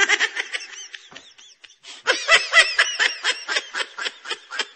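A person laughing in quick, high-pitched bursts, in two bouts: the first trails off, and a second, louder one starts about two seconds in.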